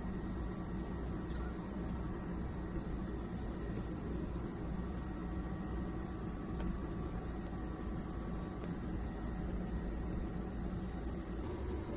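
Steady low hum and hiss with faint, unchanging high tones.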